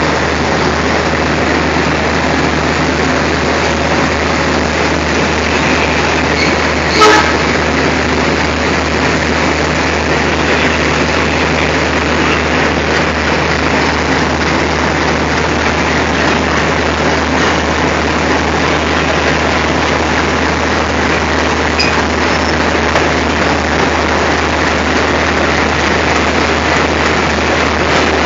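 Diesel locomotive engine idling steadily, a loud even rumble with a low hum. About seven seconds in there is one short, sharp sound.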